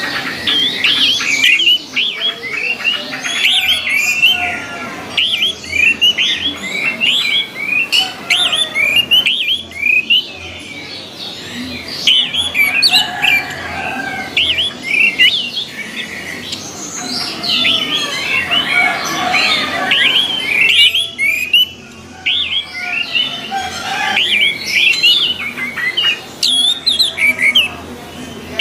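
Orange-headed thrushes singing: a fast, dense run of varied short whistled and chattering notes that sweep up and down in pitch. There are brief lulls about a third of the way in and again about three-quarters through.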